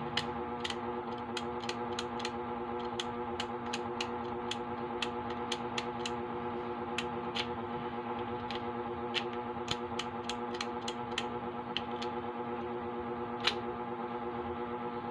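Key-cutting machine motor running with a steady hum, with irregular sharp clicks about once or twice a second.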